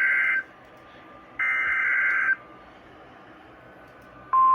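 Emergency Alert System header for a tornado warning. One burst of screechy data tones ends just after the start, and a second burst of about a second follows about a second and a half in. After a short pause a single steady high alert tone begins near the end.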